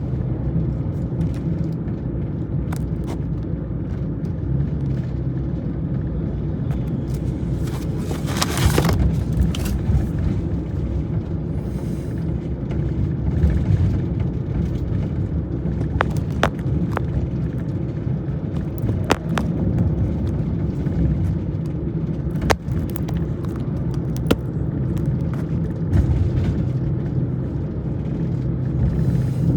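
Steady low rumble of road and engine noise from a moving vehicle, with a few sharp clicks and a brief louder rush about nine seconds in.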